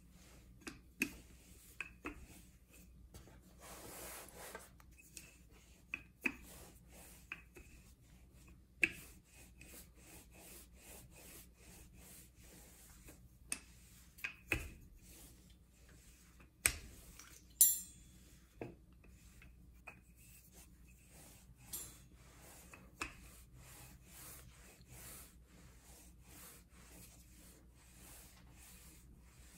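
Wooden rolling pin rolling out pizza dough on a wooden cutting board: repeated faint rubbing strokes as the pin is pushed back and forth, with a few sharp knocks now and then.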